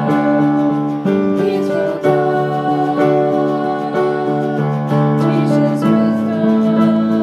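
Music: sustained keyboard and guitar chords changing about once a second, with some singing.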